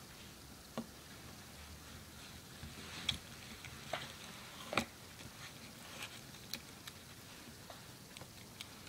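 Homemade putty being stirred and pulled with a wooden craft stick in a plastic cup: faint, scattered sticky clicks and squishes, the loudest about three and nearly five seconds in.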